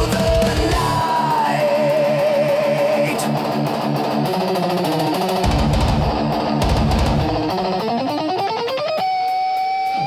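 Thrash metal instrumental break: a distorted electric guitar lead over bass and drums. The lead holds a wavering vibrato note early on and near the end slides up in one long rise into a sustained note.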